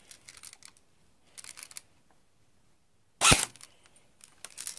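Faint rustling, then about three seconds in a single sharp shot from a CYMA G36C airsoft electric gun (AEG) fired on semi-automatic through a chronograph, with a few small clicks after it. The shot is a velocity check that reads about 352 fps with 0.2 g BBs.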